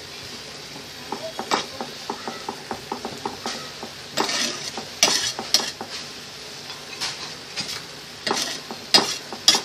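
Marinated bone-in chicken pieces sizzling in butter in a frying pan, while a metal knife scrapes and taps against the pan and the meat as it spreads the butter over them. The scrapes come in short clusters over a steady sizzle.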